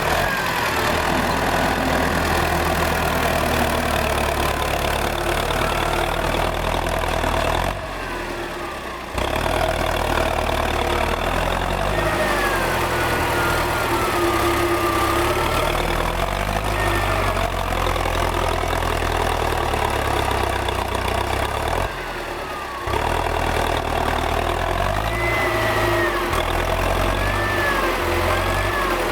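Air-cooled four-cylinder D-144 diesel of a T-40AM tractor running steadily, easing off briefly twice.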